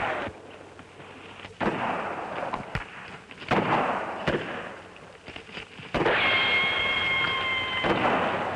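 Revolver gunfire in a western shootout: about five shots, irregularly spaced, each with a long echoing tail. The shot about six seconds in is followed by a high whine lasting nearly two seconds.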